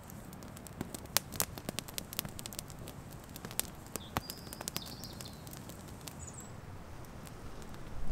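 Wood campfire crackling, with irregular sharp snaps that come thickest in the first half, and a bird chirping briefly about halfway through.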